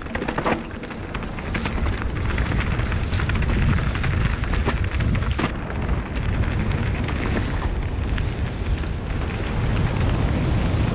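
Mountain bike riding fast down a dirt singletrack: a steady low rumble of wind on the microphone and tyres on dirt, with frequent short clicks and rattles from the bike over bumps.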